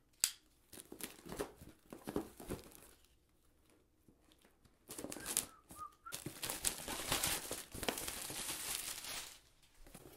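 A cardboard subscription box being opened: packing tape slit with a handheld cutter and torn away, and cardboard scraping and rustling. There is a sharp click at the start, then short scrapes, and after a brief lull a longer stretch of rasping tape-tearing and cardboard noise.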